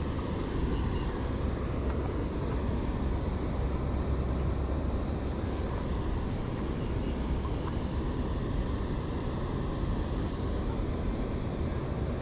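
Steady low rumbling background noise with no distinct event standing out.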